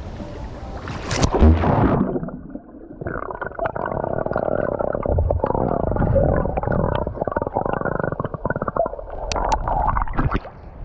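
Swimming-pool water heard by a camera microphone going under: a splash about a second in, then muffled underwater gurgling and sloshing with all the treble gone, and splashing again as it breaks the surface near the end.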